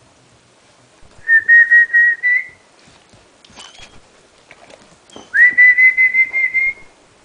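A pet animal's high, whistle-like call, given twice, each about a second and a half long, holding a steady pitch that rises slightly at the end and pulses in loudness.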